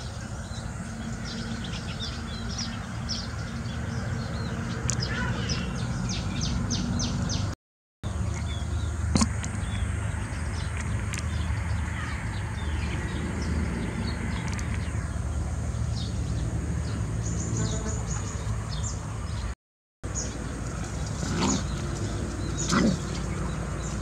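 Small songbirds giving short, high chirps in quick runs, over a steady low background rumble.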